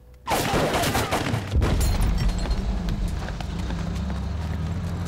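Film sound effects: a sudden loud burst, then a heavy low rumble with horse hooves clattering on the street.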